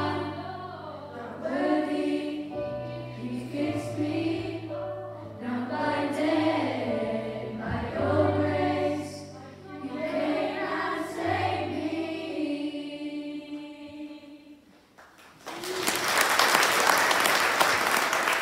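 Mixed school choir singing with low held bass notes underneath, the final phrase dying away about fifteen seconds in; then the audience breaks into applause.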